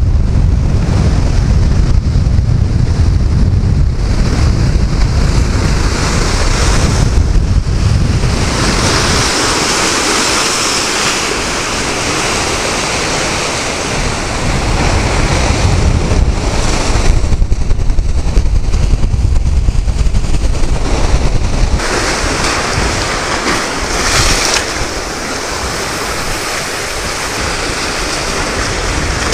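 Sea surf washing against a concrete tetrapod breakwater, with strong gusting wind rumbling on the microphone, heaviest in the first several seconds.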